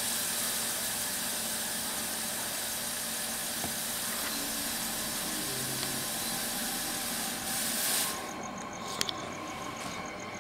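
A steady hiss that starts and stops abruptly, cutting off about eight seconds in: a fog machine blasting fog.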